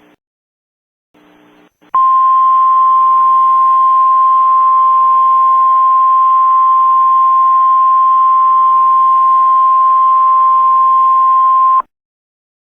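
NOAA Weather Radio warning alarm tone: a single loud steady tone that starts about two seconds in, holds for about ten seconds over a faint hiss, and cuts off suddenly. It signals that an emergency alert broadcast is about to follow.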